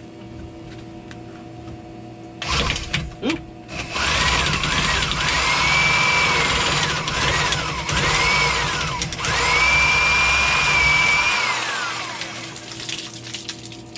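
Old Milwaukee Sawzall reciprocating saw cutting through PVC well pipe. A couple of short bursts come first, then the saw runs for about eight seconds, its motor whine rising and falling as the trigger is worked, and it winds down near the end as the cut finishes.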